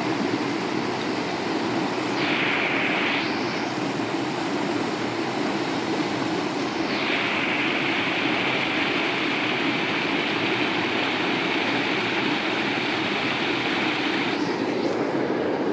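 Steady rush of water from a small waterfall on a mountain river. A brighter hiss rises over it about two seconds in, drops away, then returns from about seven seconds until near the end.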